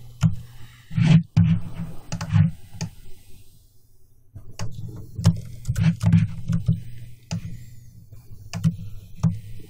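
Computer keyboard keystrokes and mouse clicks, irregular taps in clusters, with a short pause about three to four seconds in.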